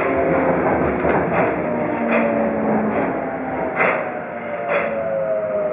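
Tokyo Metro 02-series subway train rolling through a tunnel and slowing. Its motor whine falls steadily in pitch, and sharp wheel clacks over rail joints come further apart as it loses speed.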